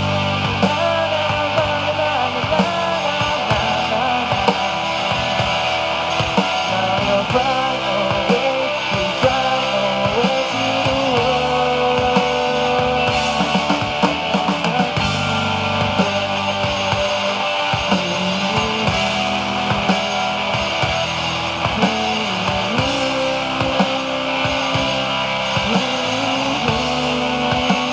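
Live rock band playing, with electric guitar and drum kit over a steady beat, the guitar holding and bending long notes.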